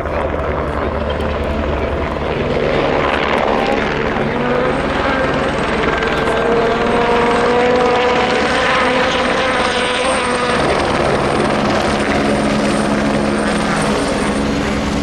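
Helicopter rotor chop, a steady low pulsing. From about four seconds in, a pitched engine tone slowly rises and cuts off around ten seconds.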